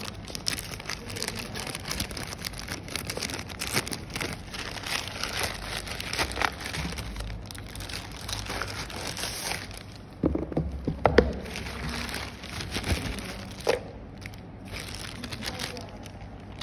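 Thin plastic courier mailer bag being torn open and handled, crinkling and crackling, with a few louder knocks about ten to eleven seconds in as the contents are handled.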